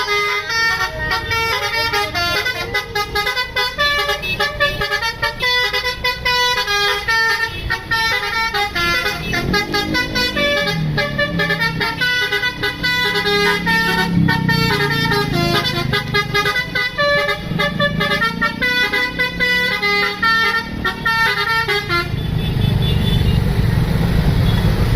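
Basuri musical bus horn (telolet) playing a fast tune of short, stepped notes, with lower sliding tones underneath in the middle. About 22 seconds in the tune stops, leaving a steady rushing noise.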